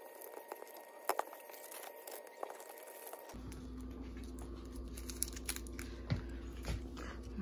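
Foil candy wrappers around grapes crinkling and crackling as they are handled and unwrapped, with scattered light clicks.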